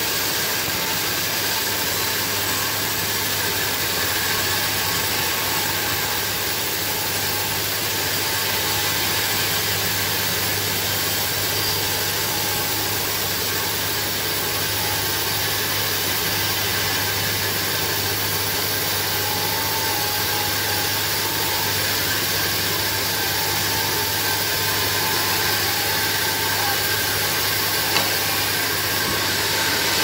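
Homemade band sawmill running steadily, its blade sawing lengthwise through a large log, with a constant hum from the drive.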